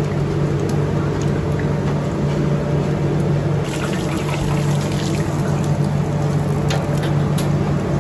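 Mughlai paratha deep-frying in a large iron kadai of oil, the oil sizzling and bubbling steadily as the paratha browns near the end of frying. A steady low hum runs underneath, and from about four seconds in there are a few light clicks of the metal spatula and tongs against the pan.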